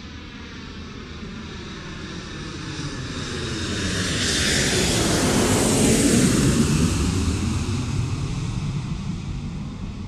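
An airplane passing overhead: it grows steadily louder to a peak about six seconds in, then fades as it moves away.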